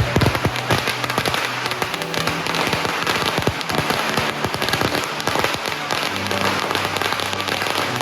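Strings of firecrackers crackling in a dense, continuous run of rapid pops, over music with a few steady low notes.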